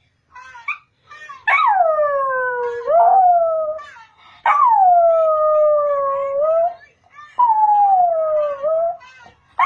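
A Jack Russell–Chihuahua cross dog howling: a few short yips, then three long howls that each start high and slide down in pitch, and another beginning near the end. The howling is set off by an advert playing on a laptop.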